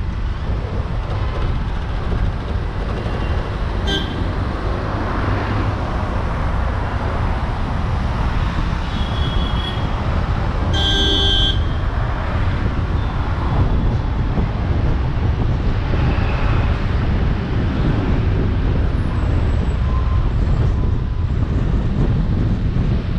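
Steady low rumble of road and wind noise while driving through city traffic, with car horns honking: a short toot about four seconds in, a louder horn blast lasting about a second near the middle, and a few fainter toots later on.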